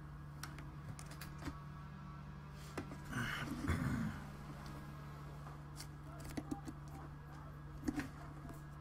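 A person getting up from a desk chair, with clothing rustle and shuffling about a second long near the middle, and scattered small clicks and knocks over a steady low electrical hum.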